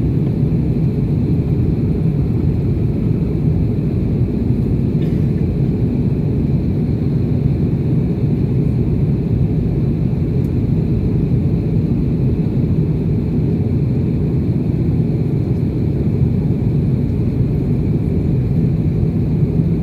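Jet airliner cabin noise during the climb after takeoff: the turbofan engines and airflow make a steady low rumble, heard from a window seat beside the wing, with a faint high whine over it.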